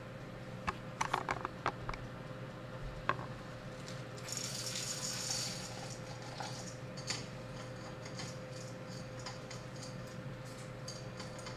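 Coffee beans poured from a small cup into an OE Pharos hand grinder give a rattling hiss for about a second and a half midway. It comes after a cluster of sharp clicks and knocks as the grinder parts are handled, and scattered light ticks follow.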